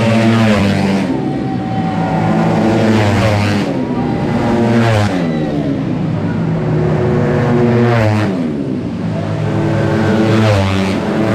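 Tuned 155cc automatic scooter race engines at high revs, their pitch sweeping down as bikes pass by about four times, with a steady engine drone between passes.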